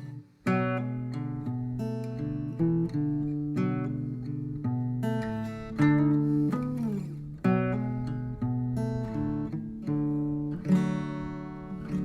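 Background music of plucked and strummed acoustic guitar, with a short break about half a second in.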